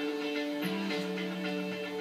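Background music from a television hunting programme: several held notes, with a lower note coming in a little over half a second in and held on.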